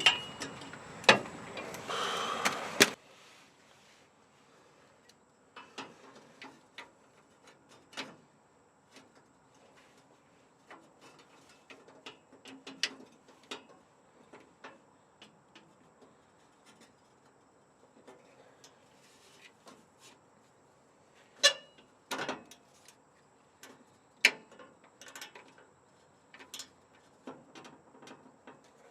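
Hand tools working on a truck's underside: scattered sharp metallic clicks and knocks of a socket, extension and torque wrench being handled and turned, with the loudest clicks about two-thirds of the way through. A louder continuous noise fills the first three seconds, then stops.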